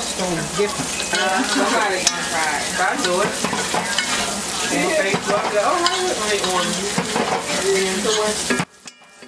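Stuffed crabs frying in oil in a cast-iron skillet: a steady sizzle, with a fork scraping and turning them in the pan. The sound cuts off abruptly near the end.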